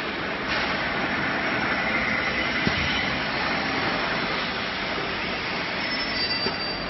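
Industrial batch frying line running on test, giving a steady mechanical noise, with a single short knock about two and a half seconds in.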